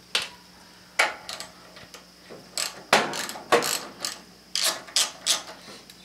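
Hand socket ratchet clicking, in short irregular runs of sharp clicks, on a nut in a riding mower's solenoid wiring.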